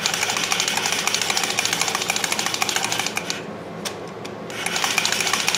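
A valve being lapped into its seat in a Briggs & Stratton 11 HP cylinder head with a hand-cranked oscillating valve-lapping tool and fine lapping compound. The valve face grinds against the seat in a rapid, gritty rasp. It stops for about a second and a half midway, then resumes.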